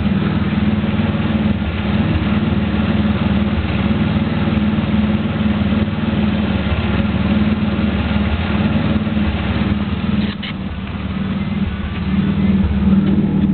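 A Camaro's 3.8-litre V6 running at a steady idle, with a short dip in level about ten seconds in. Its exhaust note breaks up now and then from a misfiring cylinder, caused by a bad spark plug.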